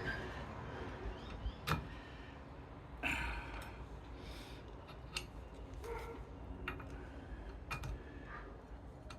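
Scattered light clicks and knocks from hand work on parts and tools, about half a dozen over several seconds, over a low steady hum.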